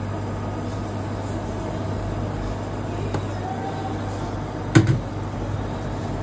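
Kitchen sounds while cooking oil is poured into a frying pan on a glass cooktop: a steady low hum with a hiss underneath, a light click about three seconds in, and a sharp double knock near five seconds in.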